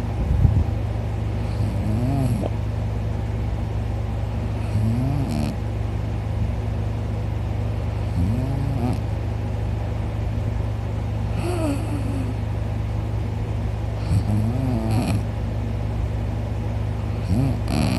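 A man snoring loudly, six snores about three seconds apart, each one rising and falling in pitch, over a steady low hum.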